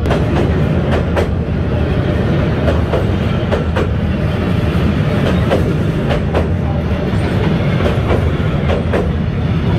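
Passenger train carriages rolling past at close range: a steady, loud rumble of the wheels on the rails, with repeated sharp clacks as the wheels cross the rail joints.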